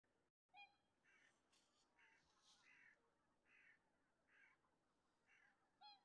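Faint, distant flock of greater white-fronted geese calling: short high yelping calls repeating and overlapping, about one or two a second.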